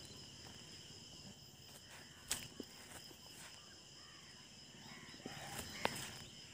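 Faint, steady, high-pitched insect drone, with two sharp knocks, one about two seconds in and one near the end.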